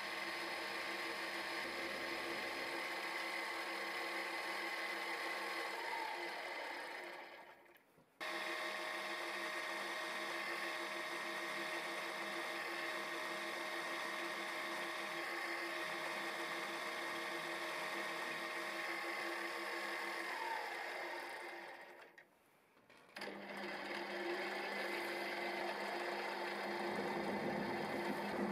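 Milling machine running steadily, with the whine of its spindle drive, as it mills, drills and countersinks an aluminium block. About a quarter and about three quarters of the way through, a tone drops in pitch and the sound fades away, then comes back.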